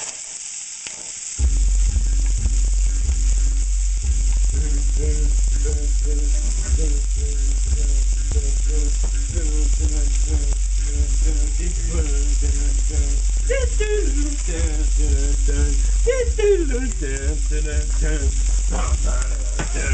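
Chicken leg quarters sizzling steadily as they brown in oil in a skillet. About a second and a half in, a low hum starts and carries on under the sizzle.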